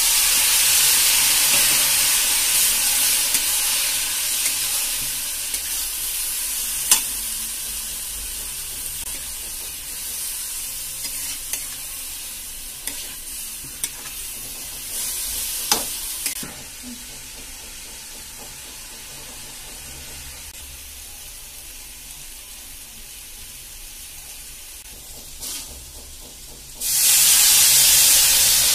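Water poured into a hot steel kadhai of spiced jackfruit pieces sizzles loudly, and the hiss slowly dies down as a steel spatula stirs, clicking now and then against the pan. Near the end a second sudden burst of loud sizzling sends up a cloud of steam.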